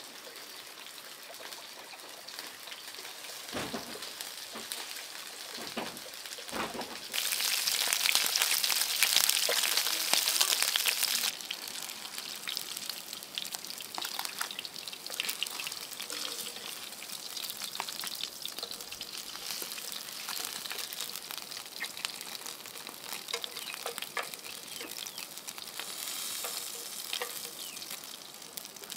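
Food frying in hot oil with a steady sizzle, after a few soft knocks. About seven seconds in the sizzle jumps much louder for around four seconds, as when more food goes into the oil, then settles back to a steady sizzle.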